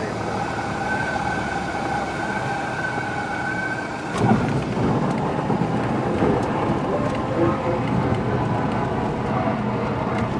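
Cessna 172 cabin noise on landing: engine and airflow running steadily while a high, steady warning tone sounds, typical of the stall warning horn in the flare. About four seconds in, a sudden thump as the wheels touch down, followed by the rougher rumble of the tyres rolling out on the runway.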